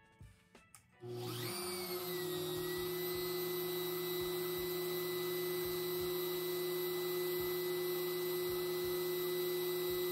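Genmitsu 710W trim router running free with no bit load, on speed setting 2. It starts about a second in, its whine climbing quickly in pitch, easing back a little, then holding as a steady high-pitched whine.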